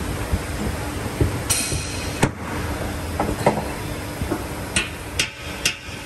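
A metal tool knocking and clinking against a car's exhaust silencer and its mounting, about seven irregular sharp taps, as the silencer is checked. There is a brief hiss about a second and a half in.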